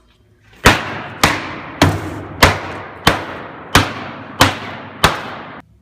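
Eight loud, sharp bangs at an even pace of about one and a half a second, each trailing off briefly, stopping abruptly near the end: the cuts being made in the foam.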